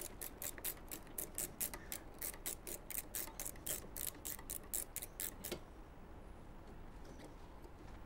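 Small 4 mm ratchet clicking evenly, about four clicks a second, as a go-kart brake caliper's pad retaining bolt is turned; the clicking stops about five and a half seconds in.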